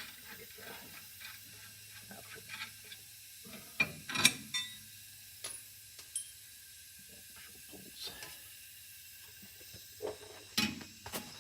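A hand ratchet clicking and steel brake parts clinking as the disc-brake dust shield is fitted and bolted on, with scattered knocks, the loudest about four seconds in and again near the end.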